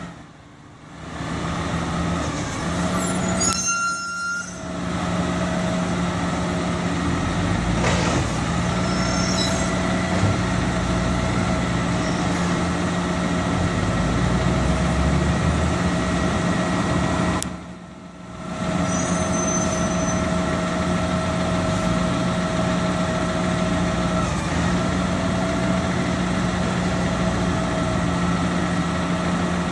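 Garbage truck running stationary at the curb, its engine and hydraulic pump holding a steady hum with a whine above it. A single sharp knock comes about eight seconds in.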